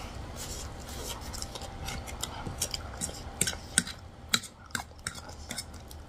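Chopsticks and a fork clicking and tapping against plates while eating, in scattered sharp ticks that come thicker and louder from about halfway in.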